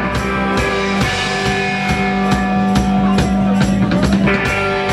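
Live band playing without vocals: a steady drum beat with electric guitar and a tambourine playing along.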